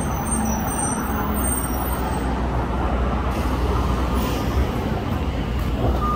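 2006 Orion VII diesel-electric hybrid transit bus pulling in to the curb, a steady low rumble over the hiss of tyres on wet road, with a thin high whine in the first two seconds. A short beep sounds at the very end.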